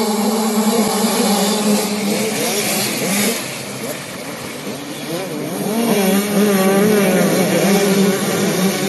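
A pack of 65cc two-stroke motocross bikes racing past, many engines revving together with their pitch rising and falling as the riders shift. The sound dips briefly about halfway, then is loudest as the bikes go by close.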